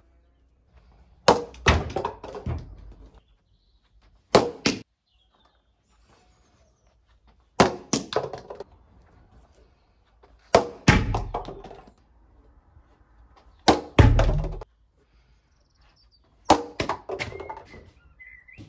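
Plastic Kwik Cricket bat hitting a plastic cricket ball off a milk-carton tee, six times about three seconds apart. Each sharp hit is followed by a few quicker, fainter knocks.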